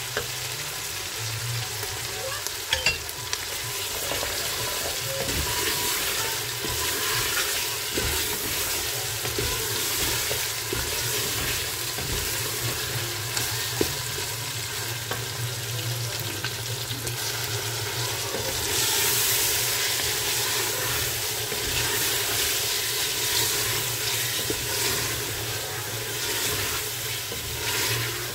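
Chicken pieces and chopped onion sizzling as they fry in oil in a metal pressure cooker pot, stirred with a wooden spoon that scrapes and now and then knocks against the pot.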